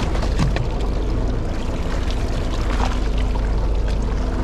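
Fishing boat's engine running steadily with a low hum, over water washing against the hull, with a few short clicks.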